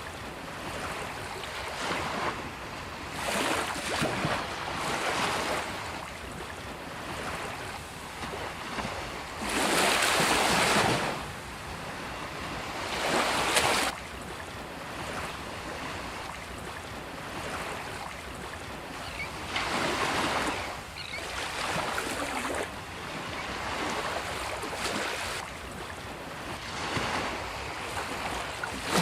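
Ocean waves breaking on a beach and washing up the shore in repeated surges of hiss. The loudest surges come about ten seconds in and again just before fourteen seconds.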